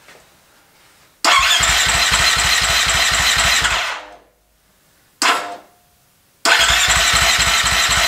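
Electric starter cranking the rebuilt Husqvarna FE 350-based 366 single-cylinder four-stroke dirt bike engine over in two spells of about three seconds, with a short blip between, the engine turning over at an even beat without catching. It does not fire because the spark plug cap is not fully seated on the plug.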